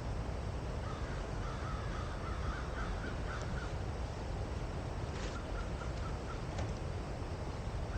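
Campfire crackling with a few sharp pops over the steady sound of gently flowing water. A bird calls in two quick runs of short notes, one about a second in and another past the middle.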